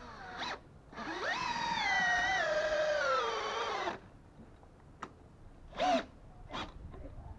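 Makita DHP481 18V brushless cordless drill driving an 8 mm SPAX wood screw into timber. The motor whine rises quickly, sinks steadily in pitch as the screw drives in, and cuts off after about three seconds. There are short bursts of the drill about half a second in and again near six seconds.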